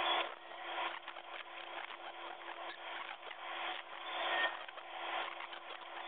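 Northern cardinal nestlings begging at the nest: a dense, raspy, scratchy chatter of rapid calls that swells at the start and again about four seconds in, over a steady low hum.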